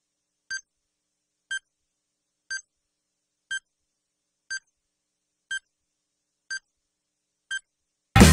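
Countdown-timer sound effect: eight short electronic beeps, one each second, marking the count down to zero. Loud rock music cuts in right at the end.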